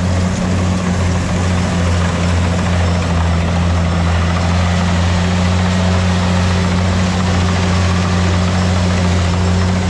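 Rice combine harvester's diesel engine running steadily: a loud, even drone with a deep hum.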